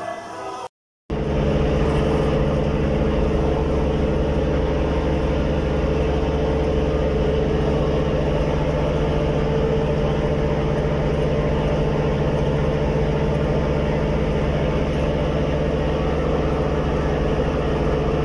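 Steady engine drone on board a boat at sea, a constant low hum that begins about a second in after a brief cut.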